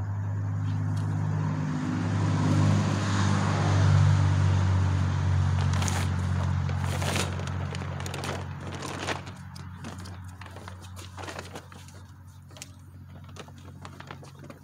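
A vehicle engine hums low and steady, swelling to its loudest about four seconds in and then slowly fading. Over it come the crinkle and rustle of a plastic tarp and fabric car cover being pulled back, most plainly about six to seven seconds in.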